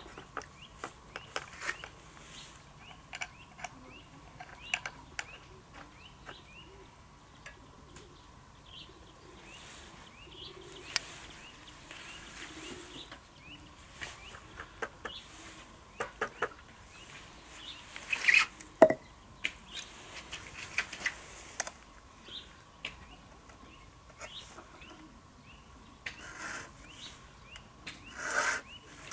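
Small birds chirping in quick short calls, with scattered sharp clicks and knocks, the loudest about two-thirds of the way in and near the end.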